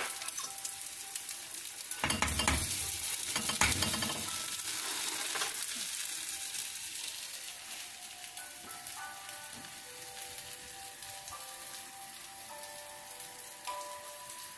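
Tortang talong (egg-dipped eggplant) frying in hot oil in a nonstick pan, a steady sizzle. It is louder between about two and five seconds in, then quieter.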